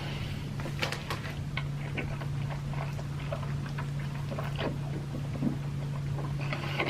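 A person eating noodles close to the microphone: scattered wet mouth clicks and smacks of chewing, over a steady low hum.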